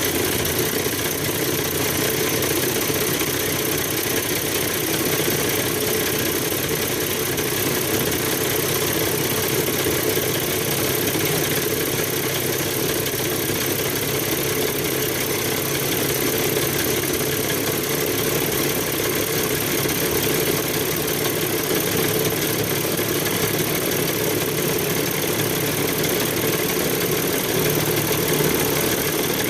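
Onan 30EK natural-gas generator set running with a steady, even engine drone that does not change in pitch or level.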